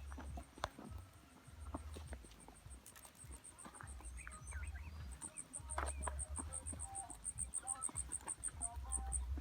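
An insect calls in a high, rapidly pulsed trill, about six pulses a second, louder in the second half. Scattered short chirps are heard over it, with a low rumble.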